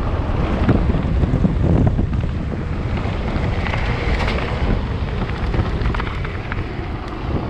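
Wind buffeting the microphone of a camera on a descending electric mountain bike, over the steady rumble of knobby tyres on a dirt and gravel trail, with scattered clicks and knocks as the bike rattles over stones and bumps.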